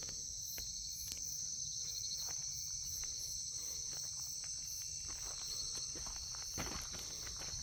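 Crickets chirping in a steady, high-pitched evening chorus, with a few faint footsteps on the ground.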